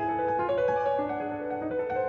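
Steinway grand piano played in a continuous stream of fast, repeating note figures in the middle register.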